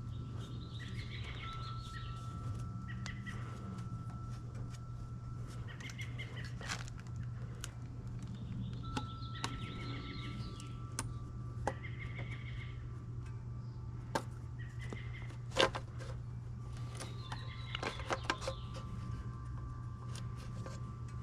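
Sharp clicks and knocks of an old, hardened plastic vacuum pipe being twisted and worked off the intake manifold, the loudest about two-thirds of the way through and a quick cluster shortly after. Birds chirp repeatedly in the background over a steady low hum.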